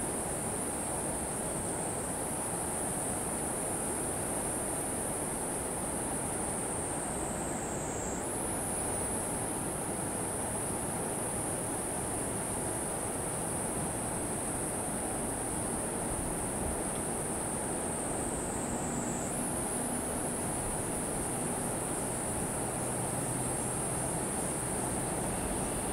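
A steady, high-pitched insect chorus that twice slides down in pitch over a couple of seconds and snaps back up. Beneath it, a faint low rumble of a distant passenger train.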